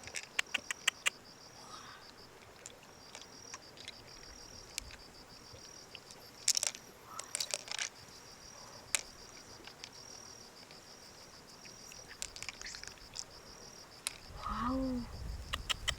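An insect chirping steadily in a high, fast-pulsed trill, breaking off briefly a few times, with scattered sharp clicks and taps over it.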